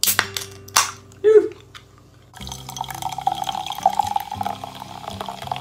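Ring-pull of an aluminium can of carbonated chuhai snapping open with two sharp cracks, then, from about two seconds in, the drink poured steadily into a glass, splashing and fizzing as it foams.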